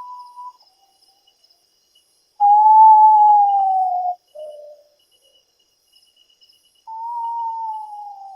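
A potoo singing: clear whistled notes, two of them long and sliding slowly down in pitch, the first followed by a short lower note, with a short higher note at the very start. A faint steady insect trill runs underneath.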